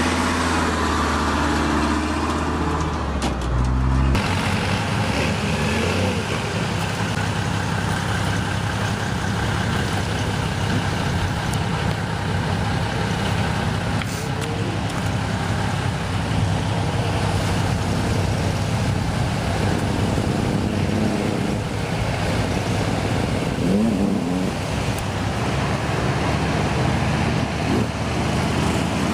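A truck's diesel-type engine running steadily at idle, then about four seconds in a change to another heavy truck's engine running under load as it drives along a dirt trail, with a brief rise in pitch near the end.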